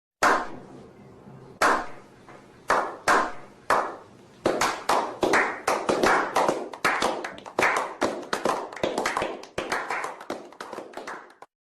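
Hand claps with a reverberant echo: a slow clap, a few widely spaced claps at first, then quicker and overlapping, tapering off near the end.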